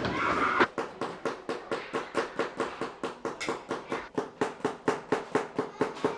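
Rapid, even tapping, about four knocks a second, starting about a second in.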